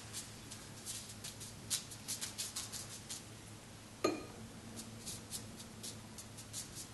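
Quick strokes of an ink brush dabbing and flicking across unsized Xuan rice paper: a rapid, irregular run of short dry scratches. A single sharp clink with a brief ring comes about four seconds in, over a faint steady low hum.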